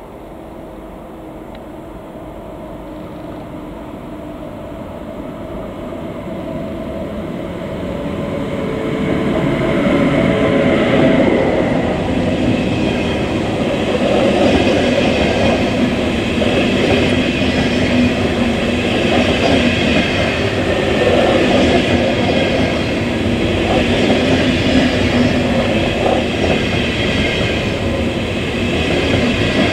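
A train approaching, growing steadily louder over about the first ten seconds, then running past close by with continuous wheel and rail noise.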